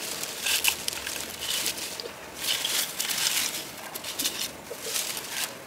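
Wooden berry-picking comb raked through low wild blueberry bushes, the leaves and stems rustling and scraping in repeated short strokes, about one a second.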